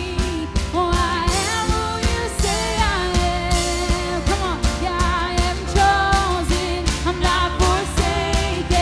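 Worship band playing an upbeat song, with singing over a steady drum beat.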